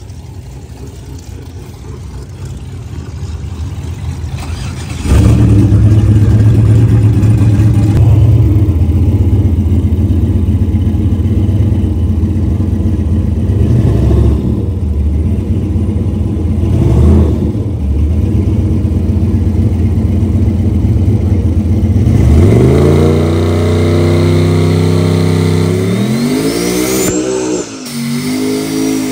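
Turbocharged 5.3 LS V8 engine running under way: it grows louder, jumps suddenly to full loudness about five seconds in, and holds steady. Near the end it revs up twice, the pitch rising and dropping each time, with a high whistle rising along with the second rev.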